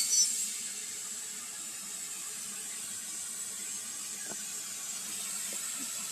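Portable CNC plasma cutter: the loud cutting hiss stops right at the start, leaving a faint steady hiss and hum from the machine after the arc has gone out, with a couple of faint ticks.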